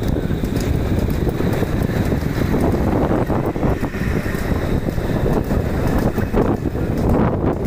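Wind buffeting the microphone, with steady low rumble from a fast-moving bull-drawn cart on the road.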